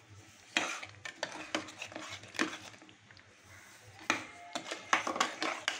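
A spoon scraping and knocking against the side and bottom of a metal pressure-cooker pan in irregular strokes while thickened, boiled-down milk is stirred, with sugar just added.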